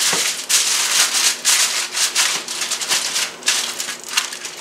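Aluminium foil crinkling and rustling in irregular bursts as it is folded and pressed over a platter of cooked chicken.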